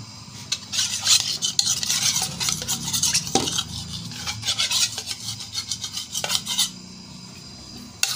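Metal ladle stirring chicken korma gravy in a metal cooking pot, with repeated clinks and scrapes against the pot that ease off near the end.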